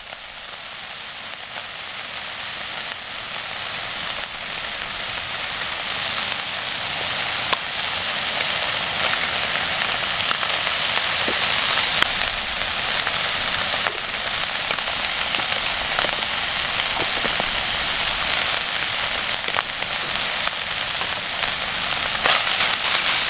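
Flaked trout frying in a pan: a steady sizzle with scattered crackles and pops, building over the first several seconds and then holding steady.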